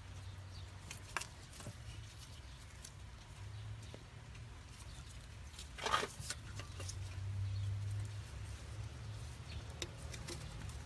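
Gloved hands working inside an engine bay, fitting a thermostat into its housing: scattered light clicks and a louder short rustle about six seconds in, over a low steady hum.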